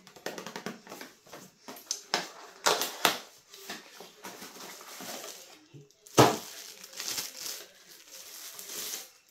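Packaging being handled and opened: a small cardboard box is pulled open and a plastic bag crinkles as a sippy cup is unwrapped. The sound is a run of irregular rustles and crackles, with one louder crackle about six seconds in.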